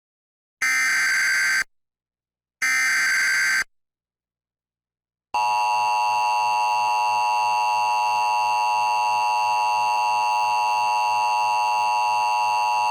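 Emergency Alert System signal. Two short screeching data bursts of about a second each, then a steady two-tone attention signal starts about five seconds in. It announces a severe thunderstorm warning.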